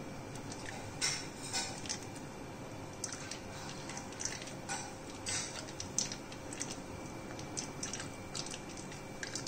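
Steel spoon stirring and scraping in a plastic strainer full of frothy wood-apple juice, with irregular clicks and scrapes, as the juice is pushed through to hold back the seeds.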